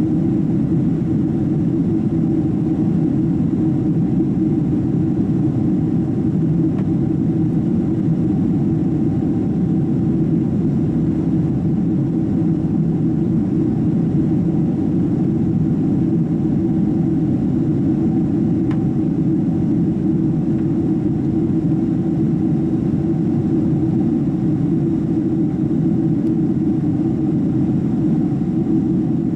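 Boeing 767-300 cabin noise: a steady, deep rumble of the jet engines and airflow, with a faint steady hum above it, unchanging throughout.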